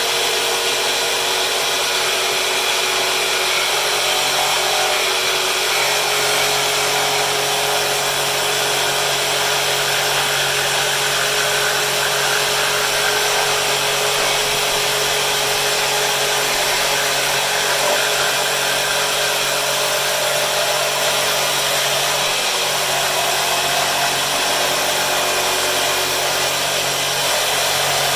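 Electric jigsaw mounted upside down as a makeshift bandsaw, running steadily while cutting wood.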